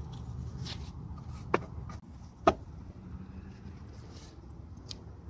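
Two sharp plastic clicks about a second apart, and a fainter one near the end, as the tail-light housing is wiggled against its retaining clips, over a low steady rumble.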